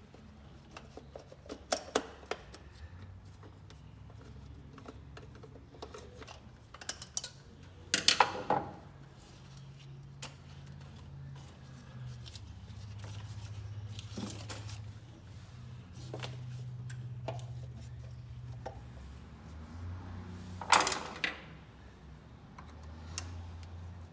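Small metallic clicks and clatter of a screwdriver and parts as the old breaker points are unscrewed and lifted out of a car's distributor, with three louder knocks, over a low hum.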